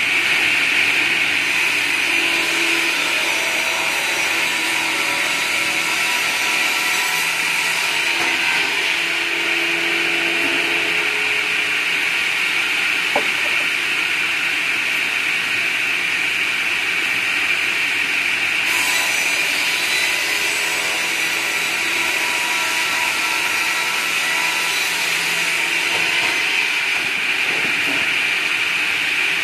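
Large circular saw blade of a round-log push table saw cutting lengthwise through a log as the carriage is pushed along, a steady, loud sawing noise that runs without a break.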